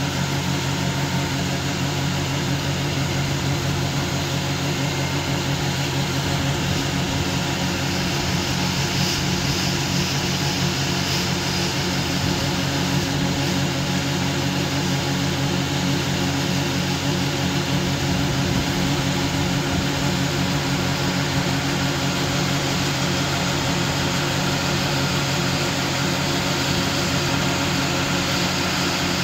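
John Deere combine running steadily at working speed while its unloading auger empties shelled corn into a grain truck's box.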